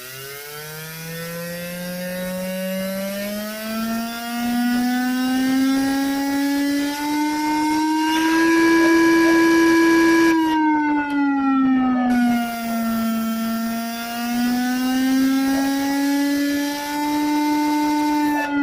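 Homemade electronic e-bike engine sound effect playing through two speakers: a buzzy synthetic tone that climbs in pitch over the first several seconds, holds at its highest and loudest about halfway through, dips, then rises again and falls near the end.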